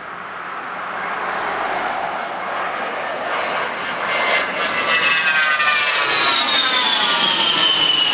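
Fairchild A-10C Thunderbolt II's twin General Electric TF34 turbofans growing louder as the jet passes low overhead, with a high whine that starts falling in pitch about halfway through as it goes by.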